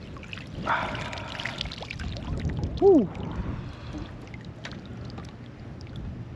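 Water splashing and trickling at the side of a kayak as a hooked redfish is brought in, with scattered light clicks and knocks of handling. A short falling tone about three seconds in is the loudest moment.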